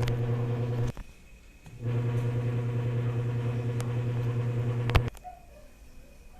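An electric appliance hums steadily in two runs. It stops with a click just under a second in, starts again about two seconds in, and cuts off with another click about five seconds in.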